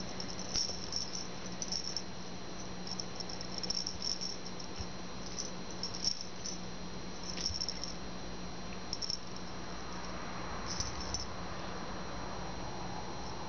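Two cats wrestling silently, their paws and bodies scuffling and rustling on carpet in short, irregular bursts, over a steady low electrical hum.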